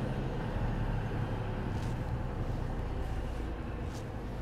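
Cab-interior drone of a 40-tonne Mercedes-Benz articulated truck: a low steady rumble of the diesel engine and road noise that eases gradually as the truck slows for a junction. Two faint clicks, about two and four seconds in.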